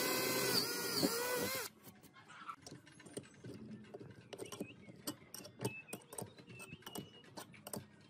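Electric drill boring a hole through a pine board, its motor whine dipping and rising in pitch, stopping about a second and a half in. After it come light, irregular clicks and ticks of small hand-tool work.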